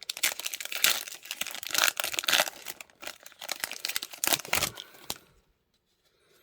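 Trading-card pack wrapper being torn open and crinkled by hand. The crackling stops about five seconds in.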